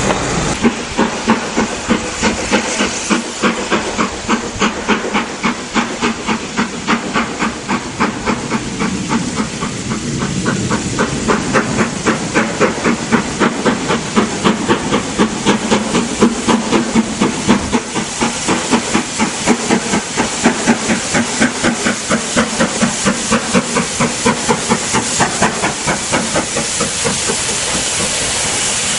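LMS Black Five steam locomotive 45428 working a train, its exhaust chuffing in a steady rhythm over a constant hiss of steam. Over the last few seconds the chuffs fade and a steady hiss is left as the engine draws close.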